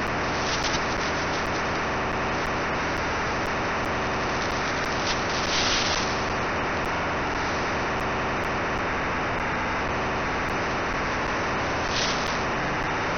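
Radio receiver putting out a steady rushing static noise from an odd signal found while tuning, with brief brighter hissy swells near the start, about halfway through, and near the end.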